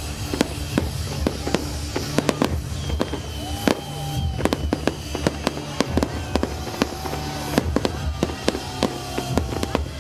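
A fireworks display going off: a dense run of sharp bangs and crackles, many a second, with music playing underneath.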